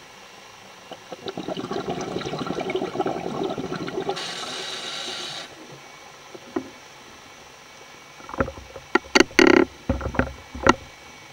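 A scuba diver breathing underwater through a regulator: a long crackling rumble of exhaled bubbles, a brief hiss about four seconds in, then several loud gurgling bubble bursts near the end.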